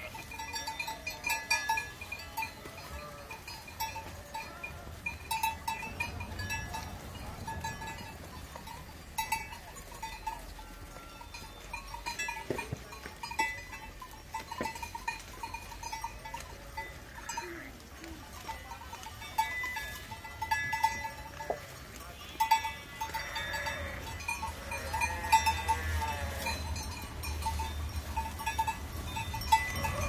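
Flock of grazing sheep with small bells clinking over and over as the animals move, and sheep bleating now and then, several bleats about three-quarters of the way through.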